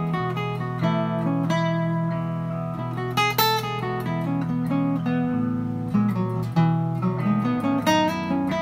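Acoustic guitar playing a single-note lead improvised on the E major scale high on the neck, over a looped backing of E and B7 chords going back and forth. The low chord notes of the loop hold steady beneath the plucked melody and change about five seconds in.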